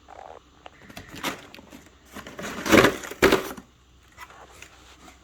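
Cardboard box packaging being pulled open and handled, with rustling, scraping and cracking, loudest about two to three and a half seconds in.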